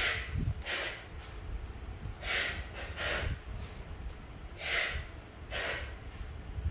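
A man breathing noisily through his nose close to the microphone: three in-and-out breaths, one every two and a half seconds or so, over a low rumble.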